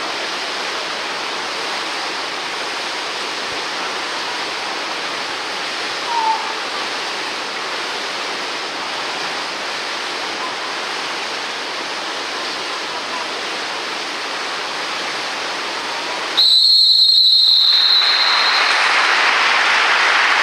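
Steady wash of water splashing and echoing pool noise during water polo play. About 16 seconds in, a referee's whistle gives one long, high blast, after which the noise comes back louder.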